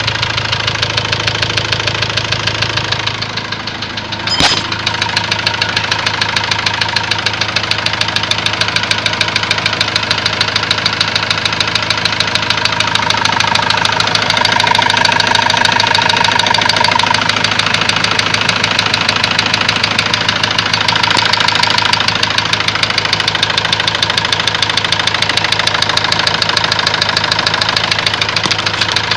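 Ford Transit diesel engine idling with a fast, even knock running through it: the engine knock the owner is chasing. A single sharp click sounds about four seconds in.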